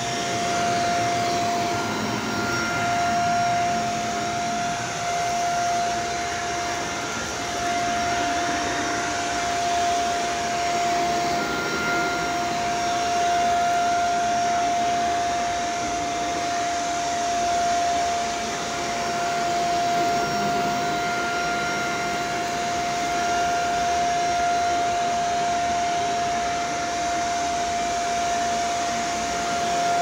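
Shark upright vacuum cleaner running steadily on carpet, a constant motor whine over the rush of suction air, its level swelling and dipping a little every few seconds as it is pushed back and forth.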